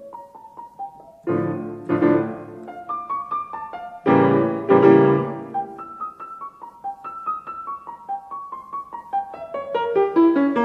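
Background piano music: a solo piano playing chords and a running melody, with loud struck chords about a second in and again about four seconds in.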